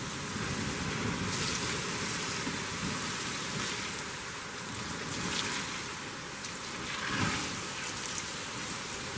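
Water being poured onto a campfire to put it out: a steady hissing and sizzling that swells several times.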